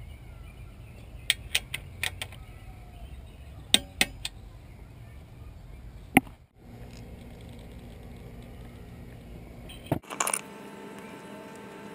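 Sharp metallic clicks and clinks from a socket torque wrench being worked on a scooter's oil drain bolt, coming in small groups, the loudest a single click about six seconds in, over a steady low rumble.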